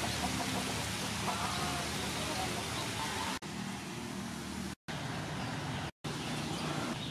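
Steady hiss of rain falling, broken off for a moment twice.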